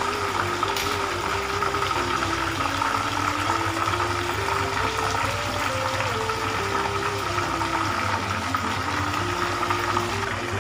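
A whole chicken deep-frying in hot oil in a wok, the oil sizzling and bubbling steadily, with a soft melody of stepping notes playing under it.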